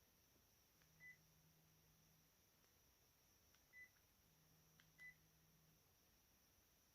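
Sharp GX1 mobile phone's keypad tone: three short, faint single-pitch beeps as its keys are pressed to move through the menu, about a second in, near the middle and about five seconds in, each just after a soft key click.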